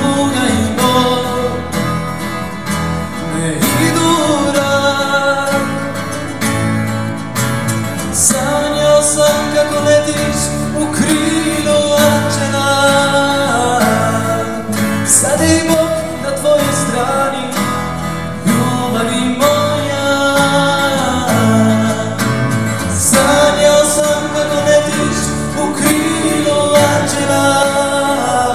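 Live acoustic band music: double bass, acoustic guitar and a small plucked string instrument playing a song together, in a country or bluegrass style.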